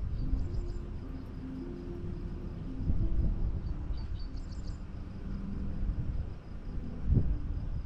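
Rural outdoor ambience: steady insect chirring and a few short bird chirps over a low rumble, with a single dull thump near the end.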